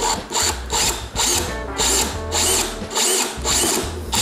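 Cordless drill boring a pilot hole through a motorcycle saddlebag wall, run in short pulses of the trigger, about two bursts a second, each with a high whine.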